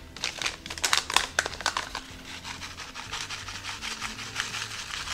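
Paper packet of dry onion soup mix crinkling sharply as it is handled and shaken. From about two seconds in, a soft, even hiss as the dry mix is shaken out over the chicken.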